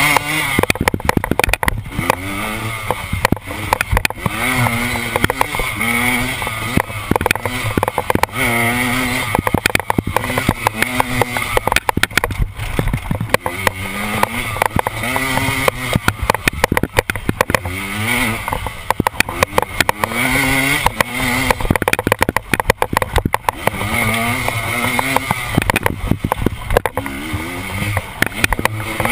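KTM enduro motorcycle engine ridden hard, revving up and dropping back over and over every second or two. Many sharp knocks run through it as the bike hits bumps.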